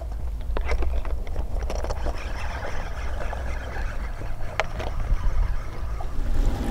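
Water lapping and splashing over a steady low rumble, with scattered short clicks; the sharpest click comes a little past the middle.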